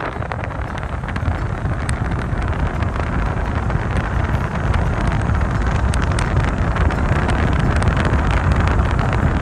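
Car driving at road speed: steady road and engine rumble with wind rushing over the microphone.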